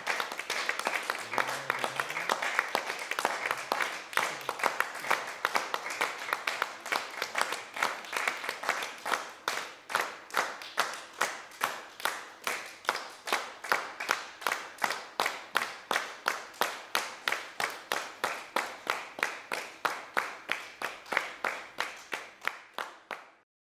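Audience applause that settles into rhythmic clapping in unison, about two to three claps a second, and cuts off suddenly near the end.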